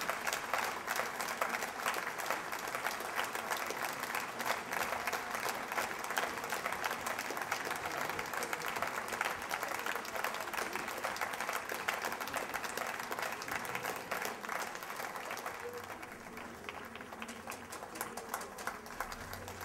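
Audience applauding, a dense, continuous clapping that eases off a little near the end.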